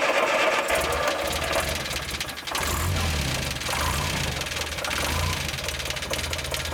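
1972 VW Beetle's freshly overhauled 1600cc air-cooled flat-four engine running steadily, the revs swelling slightly now and then, with no tappet noise.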